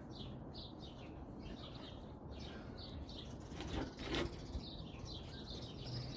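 Faint chirping of small birds, short high notes repeating a few times a second, with a brief louder rustle about four seconds in.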